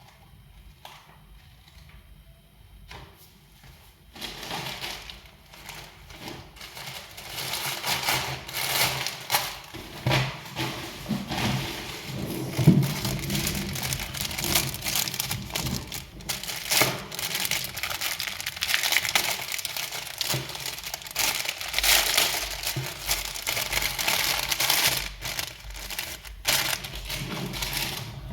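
Irregular scratching and crackling that starts about four seconds in and goes on unevenly.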